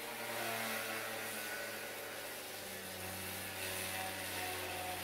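Electric motors of a home-built log-drilling robot running with a steady hum, the pitch stepping down about three seconds in as the drill carriage works back and forth.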